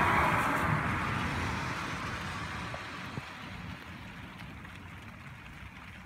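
Thunder rolling after a lightning strike, loudest at first and then dying away steadily over several seconds.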